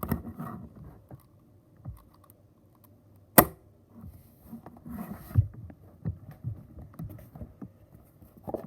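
A 4x4 Rubik's Cube being turned and handled: scattered small clicks and soft knocks, with one sharp click about three and a half seconds in.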